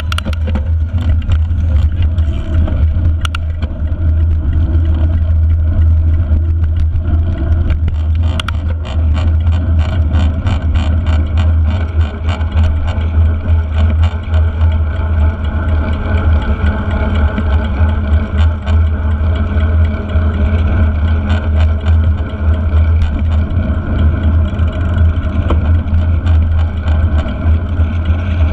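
Wind rumbling on a bike-mounted GoPro's microphone as a mountain bike rides fast on asphalt, with a steady hum from the tyres on the road.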